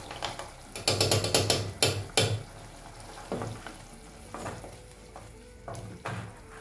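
Thick beef stew stirred with a wooden spoon in a pot. There is a quick run of scraping strokes about a second in, then slower, fainter stirring over a low sizzle.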